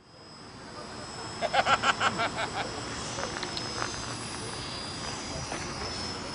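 Distant model airplane engine droning with a steady high whine. About a second and a half in comes a quick run of about eight loud, evenly spaced pitched pulses lasting just over a second.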